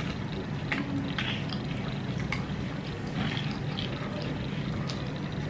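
Eating by hand: a puffy bhatura torn apart and fingers scooping wet chole (chickpea curry), giving scattered small crackles and wet clicks over a steady low hum.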